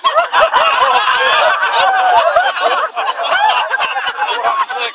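A group of people laughing and shouting at once, many voices overlapping.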